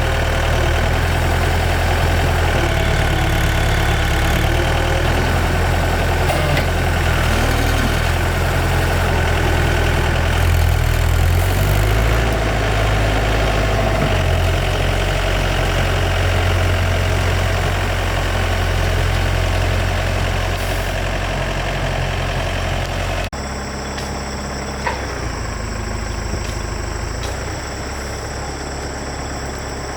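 Excavator's diesel engine running steadily. About 23 seconds in the sound cuts abruptly to a quieter engine hum with steady high-pitched tones above it.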